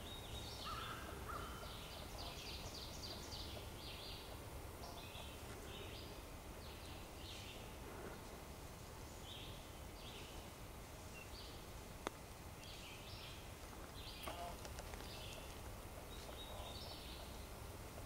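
Songbirds chirping and trilling in the woods, faint short high notes repeated throughout, with a single sharp click about twelve seconds in.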